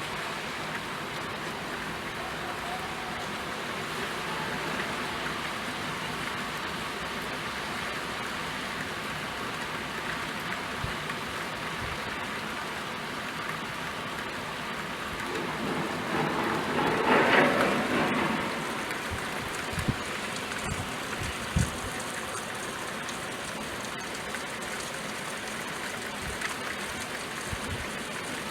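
Steady rain falling, an even hiss with scattered drops. About two thirds of the way in, a louder swell builds and fades over two or three seconds, and a few soft low knocks follow.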